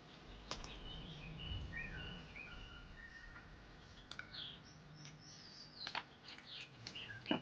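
Birds chirping faintly, with a few sharp clicks in the second half.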